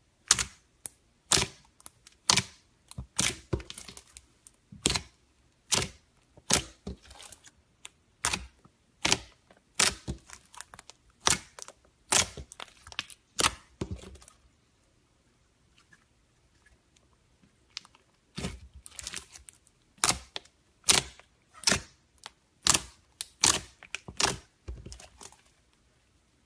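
Glitter slime being poked and squeezed by hand, giving off a string of sharp, irregular clicks and pops. There is a pause of about three seconds just past the middle.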